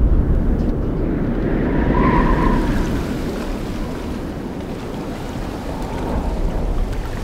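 Rushing wind and sea ambience, an even whoosh of air and surf that swells about two seconds in and eases off after.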